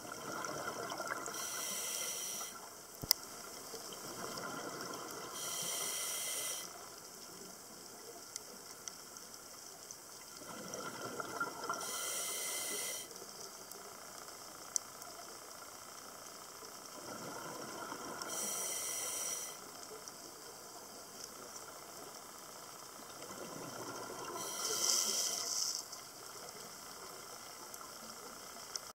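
Diver's scuba regulator breathing underwater: about five breath cycles some six seconds apart, each a bubbly rush of exhaled air followed by a short hiss of the regulator. A couple of sharp clicks stand out.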